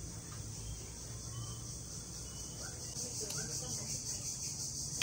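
Steady, high-pitched chorus of insects trilling, with a few faint short chirps in the middle.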